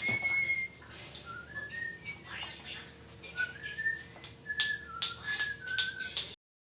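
Someone whistling a tune of short notes that jump up and down in pitch, over light clicking and clattering.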